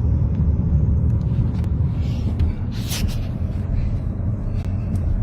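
Severe storm noise: a loud, steady low rumble with scattered sharp knocks.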